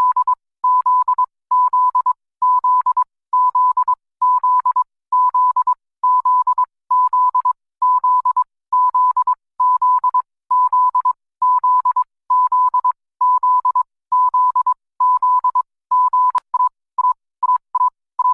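Electronic emergency alert alarm: a single steady high beep, pulsing on and off about once a second. Near the end it breaks into a few short, quick beeps, with a sharp click shortly before.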